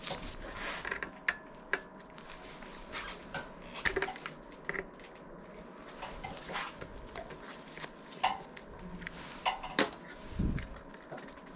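Irregular light metallic clicks and taps from hands working on a folding bicycle's frame and internal cables, with a few sharper clicks and a dull thump near the end.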